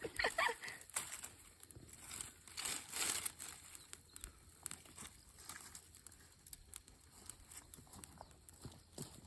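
Small wood bonfire crackling, with scattered sharp clicks and cracks and a spell of rustling about three seconds in, as the dying fire is being tended to get it going again.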